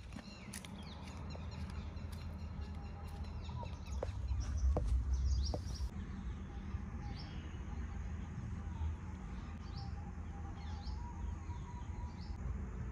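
Small birds chirping again and again, with a low rumble of wind on the microphone that swells about four to six seconds in, and a few sharp clicks around the same time.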